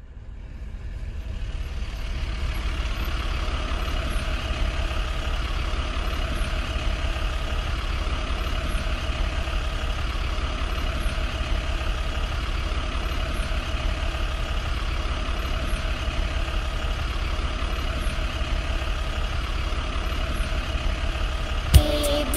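Motor vehicle engine running steadily, fading in over the first two seconds.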